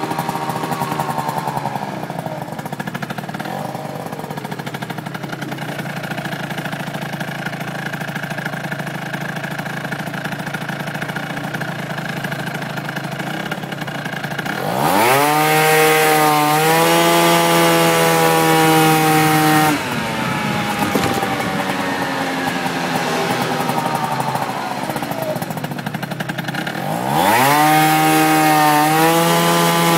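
Yamaha Jog RR 50cc two-stroke scooter engine running at a low speed, then revved up sharply about halfway through and held for about five seconds before dropping back, and revved up again near the end. The owner is recording it to show a strange noise.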